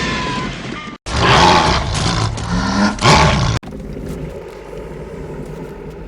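Tremors monster sound effects played back to back. First a roar with a high gliding cry, then after a brief break a louder roar that cuts off suddenly about three and a half seconds in, followed by a quieter, low, steady sound.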